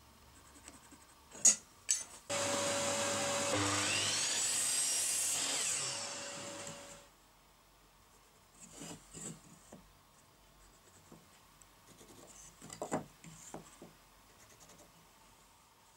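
Power saw cutting a pine batten: two sharp clicks, then the motor runs up and saws through the wood for a few seconds, its tone dropping under load and recovering before it winds down. Faint pencil scratching and light taps of wood on the bench follow.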